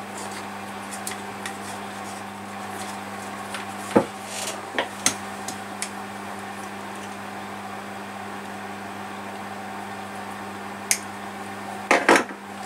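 Small clicks and taps of electrical wire and hand tools being handled on a workbench while a lamp cord is threaded through a wooden lamp base and its ends worked with pliers, with a short cluster of louder knocks near the end. A steady low hum runs underneath.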